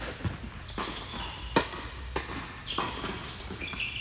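Tennis ball being struck by rackets and bouncing on an indoor hard court during a doubles rally: a series of sharp knocks, the loudest about a second and a half in, each ringing briefly in the hall.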